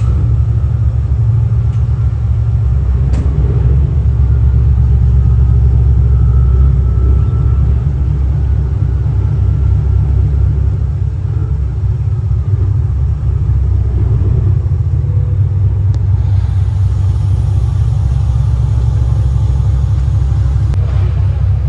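Steady, loud low rumble of a 47 m Heesen motor yacht's engines running as she manoeuvres stern-first into her berth.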